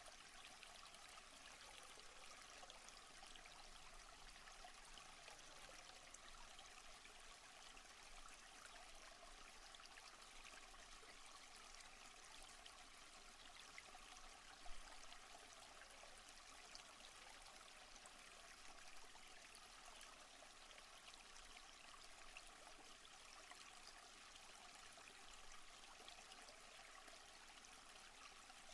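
Faint, steady rush of a stream running near a waterfall, with one brief click about halfway through.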